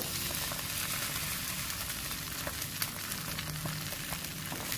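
Beaten duck egg with chopped shallots frying in oil in a non-stick pan: a steady sizzling hiss with scattered small crackles.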